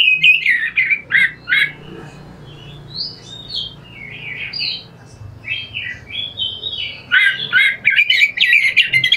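Oriental magpie-robin singing a harsh, rough song of fast, varied rasping and whistled phrases. It is loudest at the start and again from about seven seconds in, with sparser phrases between.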